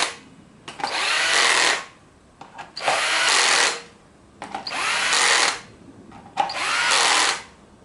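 Electric drill-driver running in four short bursts of about a second each, with short pauses between them, as fasteners are driven home while the hedge trimmer's blade assembly is put back together.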